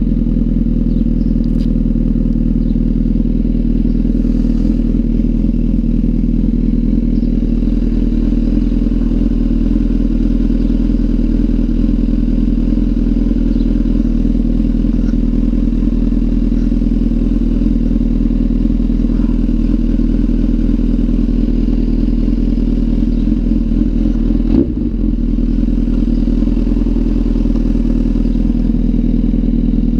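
Honda CBR1000RR inline-four idling steadily through an aftermarket undertail exhaust, with one brief knock near the end.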